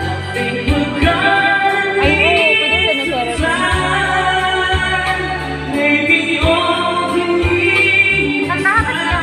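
A man singing karaoke into a microphone, his voice amplified through karaoke speakers over a backing track with a steady bass line and beat. Several notes are held long.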